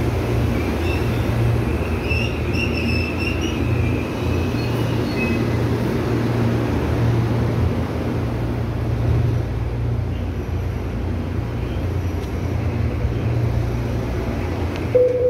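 Electric commuter train braking to a stop, with faint high wheel or brake squeal in the first few seconds, then the steady low hum of the train standing at the platform. A steady beep tone starts at the very end.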